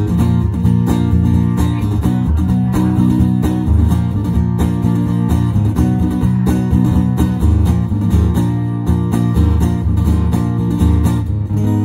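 Amplified acoustic guitar played live through a pedalboard, chords struck in a steady rhythm with ringing notes between.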